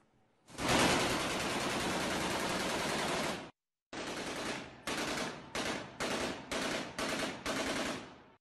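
Assault rifle fired into the air on full automatic: one long burst of about three seconds, then, after a short break, a string of short bursts in quick succession.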